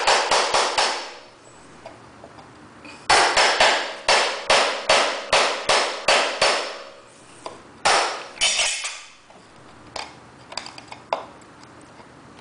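Hammer driving a chisel into a parquet floor strip: runs of sharp blows, about three a second, stopping and starting again, with a few lighter taps near the end.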